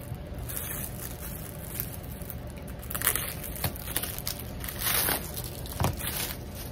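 Thin clear plastic wrapping crinkling and tearing as it is pulled off a rolled canvas, in several short bursts, the loudest about five seconds in, then scrunched up in the hands near the end.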